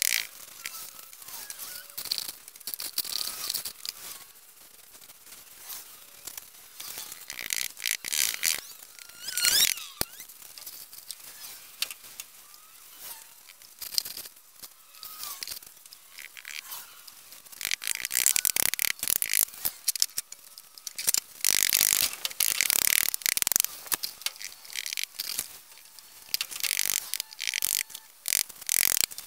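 A small trowel and hand scraping and patting a gritty perlite-and-cement mix as it is spread and levelled for a pizza oven base. The strokes are irregular and scratchy, coming thick and fast for most of the last ten seconds.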